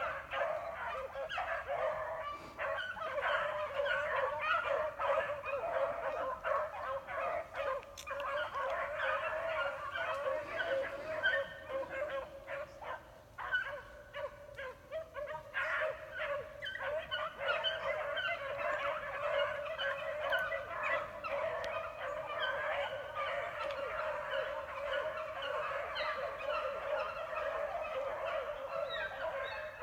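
A pack of beagles baying together while running a rabbit's scent trail, many voices overlapping. The cry thins out for a few seconds about halfway through, then builds again.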